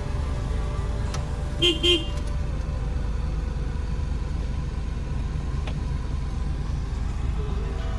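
Two short car-horn beeps in quick succession about two seconds in, from a Honda car heard inside its cabin, over the steady low rumble of the car idling.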